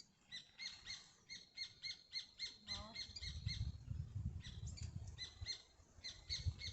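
A bird chirping in a fast, even series of short, high chirps, with a brief run of falling notes about three seconds in. A low rumble joins from about halfway.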